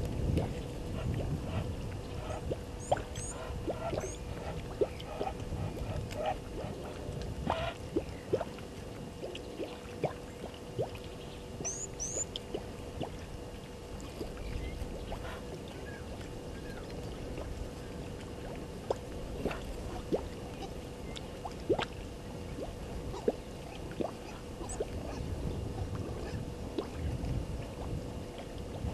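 Outdoor waterhole ambience: a low wind-like rumble with many scattered sharp clicks and small water sounds, under a steady faint hum. Brief high bird chirps come about three seconds in and again about twelve seconds in.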